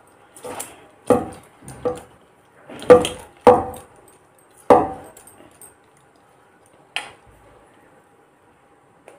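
A hand mixing food in a stainless steel bowl: about six sharp clinks of fingers and bangles against the steel in the first five seconds, each leaving the bowl ringing, then a single clink about seven seconds in.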